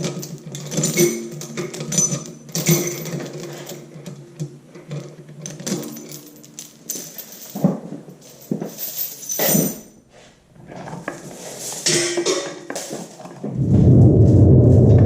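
Scattered metal clinks and knocks of tools and engine parts being handled, over quiet background music. About a second and a half before the end a loud, steady low rumble starts.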